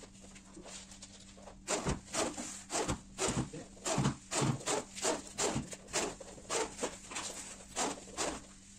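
Repeated short strokes of hand work on the wooden-stud and gypsum-board partition, about two or three a second, starting about two seconds in.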